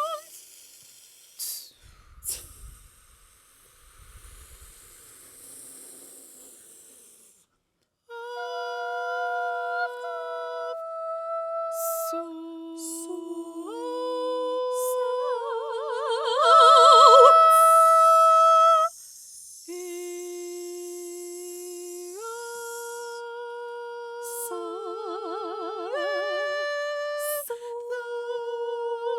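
Two sopranos performing a contemporary vocal piece. It opens with several seconds of breathy hissing sounds and a couple of soft low thumps. After a brief silence come long held notes in close harmony that move together in steps, some of them with a wide, fast vibrato.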